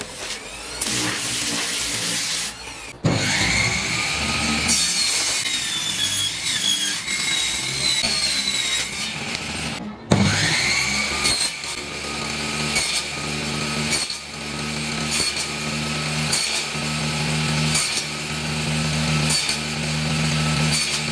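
Orbital sander running on plywood for the first few seconds. Then a table saw's motor starts with a rising whine and runs. It stops and starts again about ten seconds in, then runs steadily while a thin plywood strip is cut into small blocks, one short cut after another.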